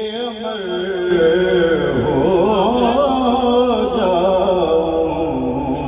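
A man singing a naat, drawing out one long wavering melismatic phrase with no clear words, his pitch bending up and down throughout.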